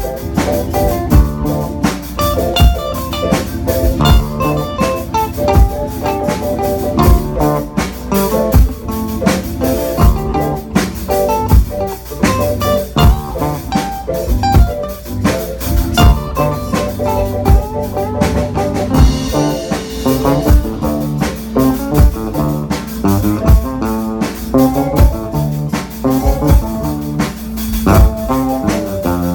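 A live band playing a song: drum kit keeping a steady beat under guitar and other pitched instruments.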